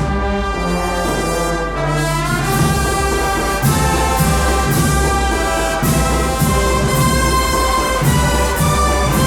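Brass-and-percussion band playing a Spanish Holy Week processional march, with sustained brass chords. About two and a half seconds in, the drums and low brass come in and the band grows fuller and louder, with regular drum strokes.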